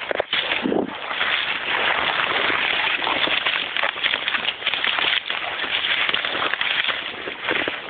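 Leaves and twigs rustling and scraping in a dense, crackling stream as someone pushes through thick brush, the foliage brushing right against the microphone.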